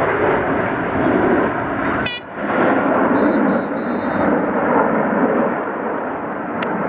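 Jet roar from the Blue Angels' F/A-18 Hornets flying over in formation: a loud, steady rushing noise that briefly dips about two seconds in.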